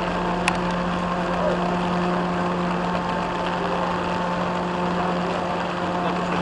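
Engine of an amphibious rescue truck running steadily at low speed as it wades through floodwater, under a steady hiss of heavy rain. A single sharp click about half a second in.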